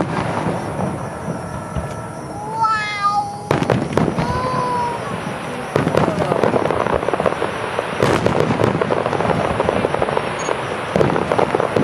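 Aerial fireworks display: sharp bangs of shells bursting and a dense crackling that grows thicker about halfway through.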